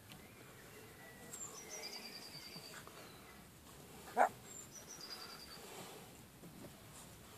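A dog gives one short bark about four seconds in. Behind it, a songbird sings twice, each phrase stepping down in pitch and ending in a quick run of repeated notes.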